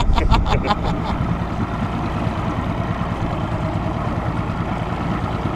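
Mercury outboard motor driving a bass boat under way: a steady engine drone with the rush of the wake.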